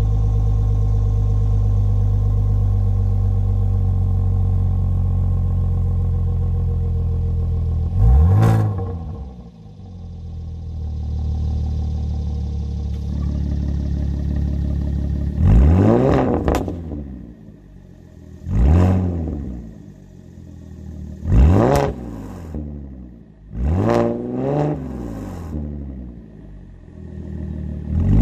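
Audi S4 engine through an Armytrix cat-back valvetronic exhaust, holding a steady fast idle, then blipped: a quick rev about eight seconds in, after which the idle settles lower, and a run of short rev blips every two to three seconds, each a quick rise and fall in pitch.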